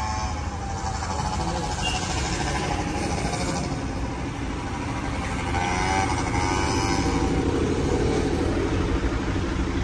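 Street traffic: a road vehicle's engine runs close by, a little louder from about halfway through, with passers-by talking.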